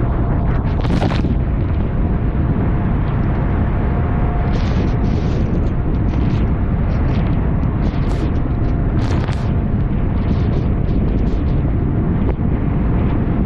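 Heavy wind buffeting the microphone aboard a Buster Magnum aluminium motorboat running through choppy waves, a deep continuous rumble with a faint steady engine tone underneath. Irregular hissing splashes of spray and waves against the hull break through every second or so.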